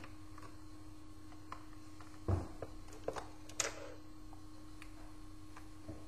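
Laptop parts and a parts tray being handled and set down on a wooden desk: a dull knock about two seconds in, then a few sharper clicks over the next second and a half, with a steady hum behind.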